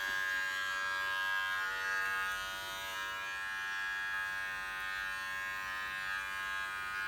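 Masterclip Showmate cat trimmer switched on, starting abruptly, then running steadily with an even electric hum.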